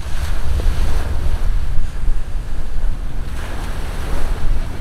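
Small waves breaking and washing up a sandy beach, with wind rumbling on the microphone; a louder wash comes in near the end.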